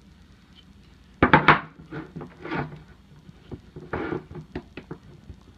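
Wooden puzzle box being handled, its parts knocking and scraping as a piece is worked loose and pulled out. The loudest knock comes about a second in, with scattered small clicks after it.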